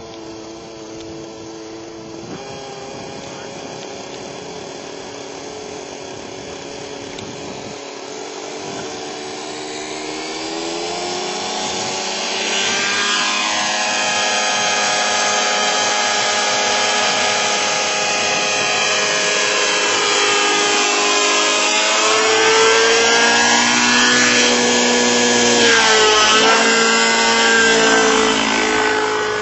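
Robbe Millenium 2 radio-controlled helicopter's engine and rotor running with a high-pitched whine that rises in pitch and gets louder about ten seconds in as it spools up. It then runs loud and steady, its pitch sweeping down and back up a couple of times near the end.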